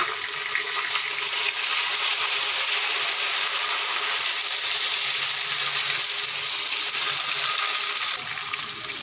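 Tomatoes, onion and green chillies frying in hot ghee in a wok, sizzling steadily as they are stirred with a silicone spatula. The sizzle eases slightly near the end.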